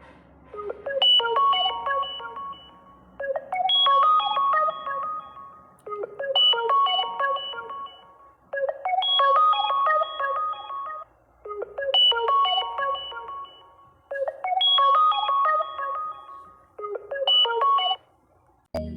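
Phone ringtone used as the Facebook Messenger incoming-call sound, ringing for an incoming call: a short melodic phrase of chiming notes repeating roughly every two and a half seconds, seven times, the last cut short near the end.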